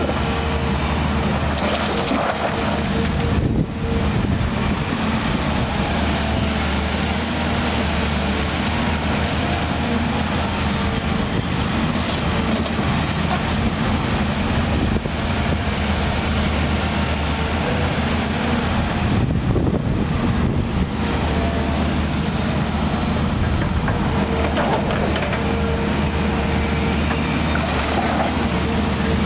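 Volvo EC210B excavator's diesel engine running steadily under load as it digs and moves wet mud with its bucket, with a high whine coming and going above the engine note.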